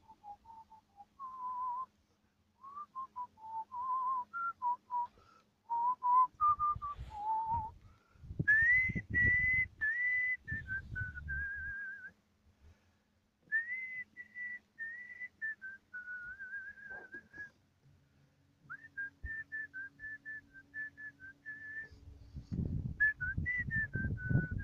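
A person whistling a slow tune: the notes sit low for the first several seconds, then jump about an octave higher from about eight seconds in, in phrases with short pauses. Dull low rumbles come and go beneath it.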